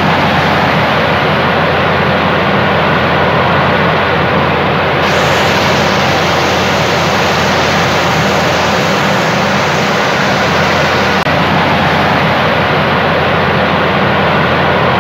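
Heavy rain falling onto a flooded puddle: a loud, steady hiss of drops splashing on water.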